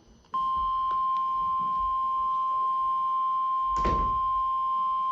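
NOAA Weather Radio warning alarm tone: a single steady 1050 Hz beep that switches on about a third of a second in and holds, signalling that an alert, here a tornado watch, is about to be broadcast. A brief thump about four seconds in.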